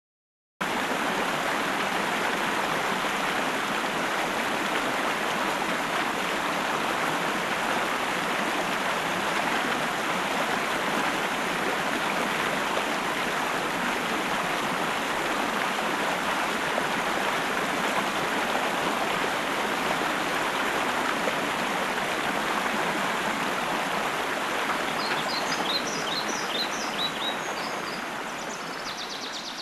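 Stream water running steadily. A bird chirps a run of quick high notes near the end as the water sound fades out.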